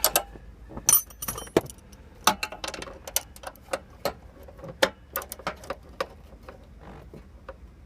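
Metallic clicks and clinks of a hand wrench tightening the bolts of a newly fitted car door hinge. The clicks come irregularly, several a second, loudest and most crowded in the first half.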